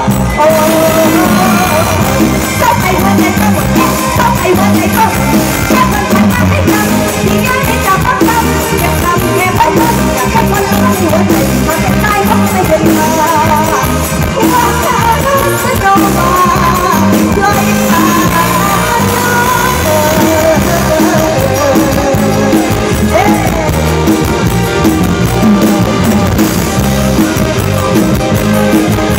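Loud amplified live band music from a Thai Isan stage show, with a steady dance beat and a wavering melody line.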